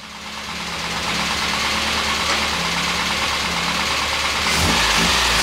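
Austin Metro's four-cylinder A-Series engine idling as it runs up to temperature, fading in over the first second and then running steadily, a little louder near the end.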